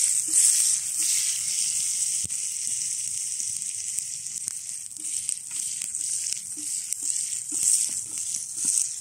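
Food stir-frying at high heat in a frying pan held over an open wood fire: a steady high sizzle with scattered small crackles.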